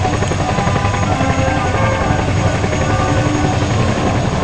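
Engine of a small aerobatic propeller plane giving a loud, steady drone as it flies its loops.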